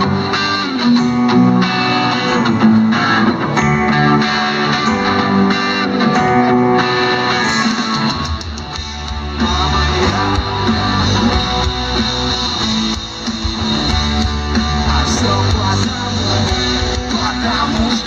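Live band playing guitar music through outdoor stage speakers, with the bass coming in strongly about halfway through.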